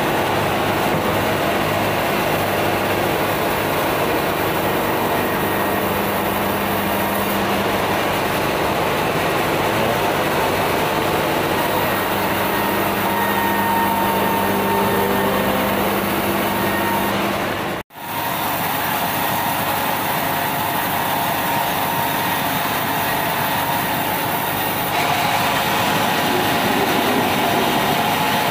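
Large sawmill bandsaw and its drive engine running steadily while the blade rips a red meranti beam, a loud continuous mechanical drone. The sound cuts out abruptly for an instant about two-thirds of the way through, then resumes.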